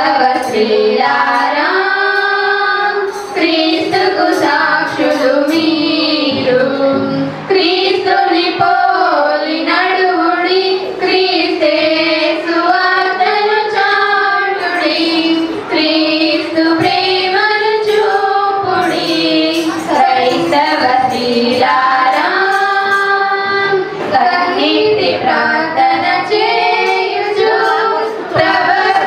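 Female voices, high like girls' or young women's, singing a Telugu Christian song together, with long held and gliding melodic notes.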